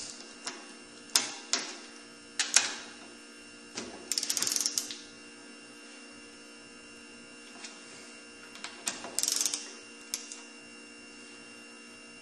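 Ratchet wrench clicking in quick runs as it is swung back between pulls while engine cylinder bolts are turned a further angle past torque, with a few single sharp metal clicks of the socket and wrench. A steady electrical hum runs underneath.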